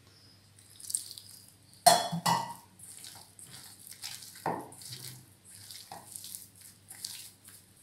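Hands mixing and squeezing wet, oily maida dough in a stainless steel bowl, with wet squishing and fingers knocking against the metal. There are two sharp metal knocks about two seconds in.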